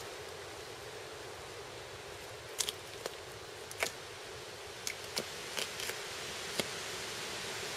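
Scattered small, sharp clicks and ticks from a Lone Wolf Harsey T2 Ranger hunting knife cutting through a deer carcass's meat and tendons by hand, over a steady background hiss. The clicks start about two and a half seconds in.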